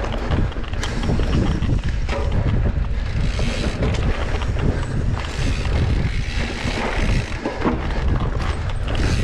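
Wind buffeting the microphone: a loud, uneven rumbling noise, with scattered brief clicks.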